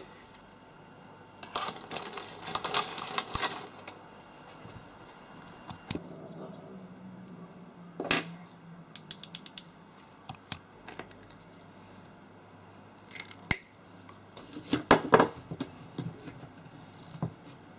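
Clicks, knocks and clatter of hand tools on metal parts, with a quick even run of ratchet-like clicks about nine seconds in.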